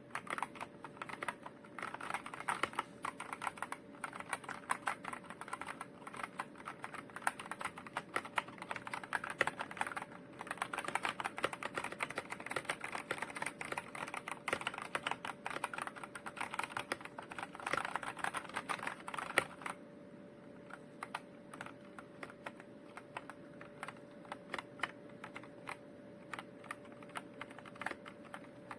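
Typing on a Redragon K689 gasket-mounted mechanical keyboard with linear switches: fast, continuous keystrokes for about twenty seconds, then slower, scattered key presses.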